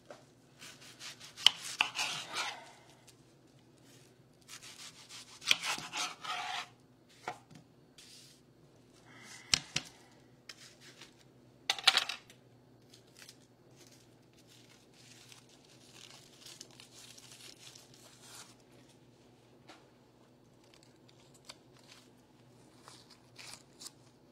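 Kitchen knife cutting through an onion on a cutting board: four or five separate crunching cuts with sharp knocks of the blade on the board in the first half, then softer scraping and small clicks. A low steady hum runs underneath.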